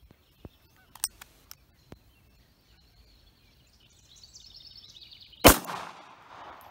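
A single pistol shot about five and a half seconds in, sharp and loud, with a short echo trailing off. A few faint clicks come in the first two seconds.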